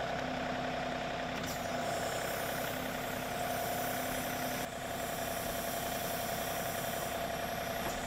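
John Deere tractor's diesel engine running steadily, with a steady high tone on top of the engine note.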